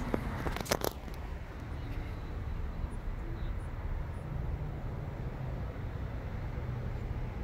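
A steady low rumble, as of a vehicle running, with a few sharp clicks in the first second.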